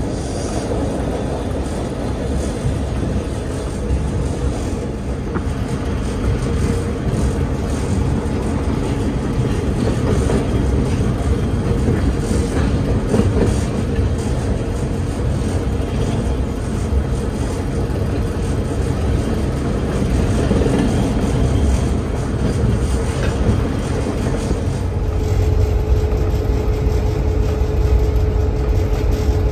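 Reading & Northern train running steadily, heard from on board: a continuous low rumble of locomotive and wheels on the rails. Near the end a thin, steady whine comes in over the rumble.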